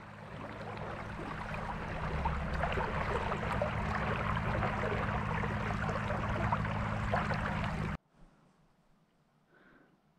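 Small boat moving across calm water: water rushing and splashing along the hull over a low steady hum. It swells in over the first couple of seconds and cuts off abruptly about eight seconds in.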